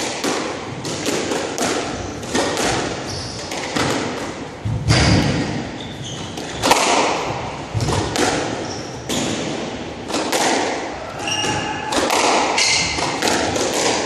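Squash rally: sharp hits of the ball off the racquets and thuds of the ball off the walls and glass, coming irregularly every half second or so, with short high squeaks of shoes on the wooden court.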